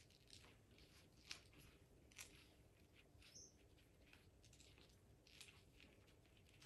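Very faint crinkling and rustling of concertina-folded edible metallic paper being spread out in gloved hands, with a few soft crackles scattered through.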